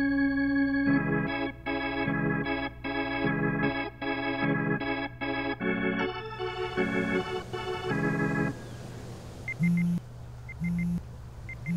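Organ-like title music: a held chord, then short rhythmic chords that stop about eight and a half seconds in. A pager then goes off three times, each a quick high beep over a low buzz.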